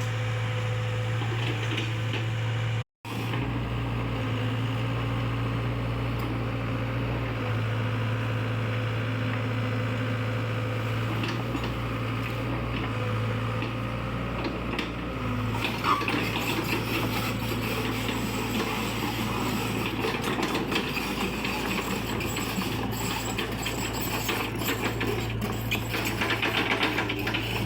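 XCMG XE60GA compact excavator's diesel engine running at a steady drone, cutting out completely for a moment about three seconds in. From about halfway it is joined by a noisier layer of rattling and small knocks.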